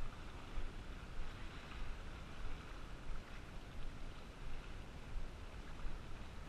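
Wind rumbling on the microphone over small sea waves washing and lapping against shore rocks, an even rushing noise that swells a little now and then.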